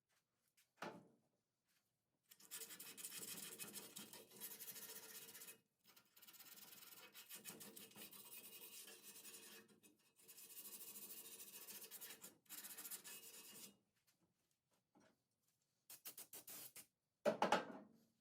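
Hand sanding: rapid back-and-forth scratchy rubbing in three runs of about three seconds each, with short pauses between them. A few sharp knocks near the end are the loudest sounds.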